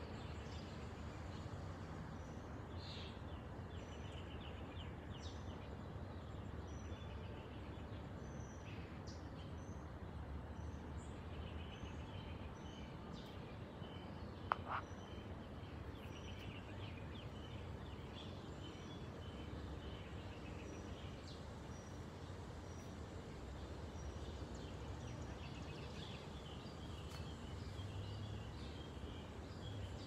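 Wind through leafy trees, a steady rustling hiss, with small birds chirping again and again in the background. A single brief click about halfway through is the loudest moment.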